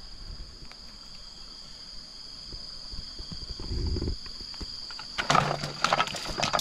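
Steady high-pitched chorus of insects, with a low thump about four seconds in and a burst of close crackling and rustling near the end as a caught fish and its cord are handled over a bucket.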